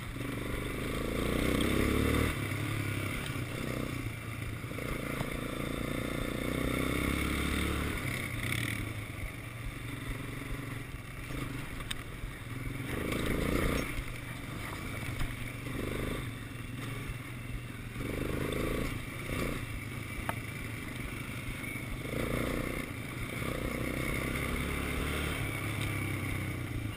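Quad bike engine running as it rides along a dirt track, revving up in several rising surges and easing off between them.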